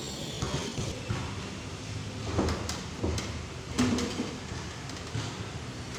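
Classroom door knocking and rattling, with a few sharp knocks about two to four seconds in over a steady background hiss.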